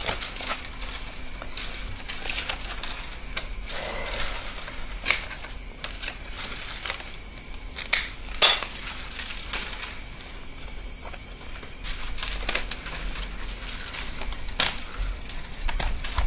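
Split green bamboo strips being woven by hand into a tubular eel trap: dry rubbing and crackling of the bamboo as strips are bent and pushed through the weave, with scattered sharp clicks.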